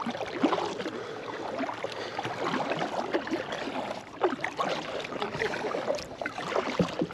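Water splashing and gurgling around a kayak under way: the paddle blades dipping and water lapping against the hull in an irregular run of small splashes.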